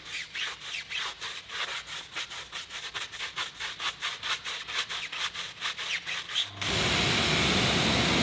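Stiff tyre brush scrubbing a foamed rubber tyre sidewall in quick back-and-forth strokes, about four a second. About six and a half seconds in it switches to a pressure washer's jet spraying the wheel, a steady, louder hiss of water.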